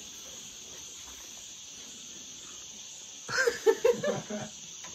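Steady high-pitched drone of insects. About three seconds in, a woman's voice breaks in briefly over it.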